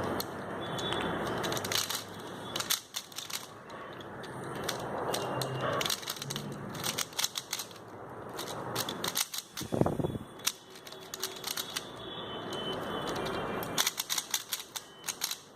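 3x3 Rubik's cube being turned fast during a speedsolve: quick flurries of plastic clicks and clacks as the layers snap round, with short pauses between flurries and one louder knock about ten seconds in.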